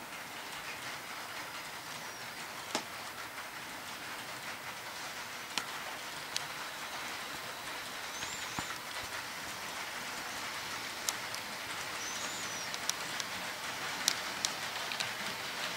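HO-scale model freight train rolling along the layout track: a steady hiss of metal wheels on rail, with scattered sharp clicks, growing slightly louder toward the end.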